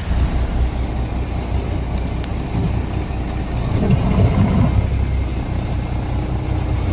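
Fishing boat's engine running with a steady low hum, under a haze of wind and sea noise.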